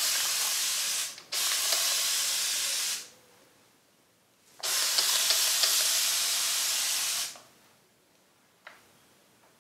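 Hand-held spray bottle of warm water misting conditioner-coated hair in three long hissing sprays, the first ending about a second in, the next lasting about two seconds, the last about three, to wet the hair for detangling.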